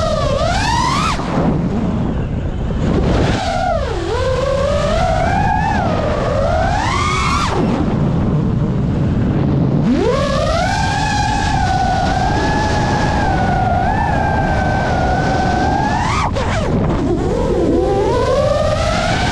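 FPV freestyle quadcopter's brushless motors and propellers whining, the pitch sweeping up and down with the throttle and holding fairly steady for several seconds in the middle, over a constant low rush of air. Near the end the whine drops sharply for a moment, then climbs and wavers again.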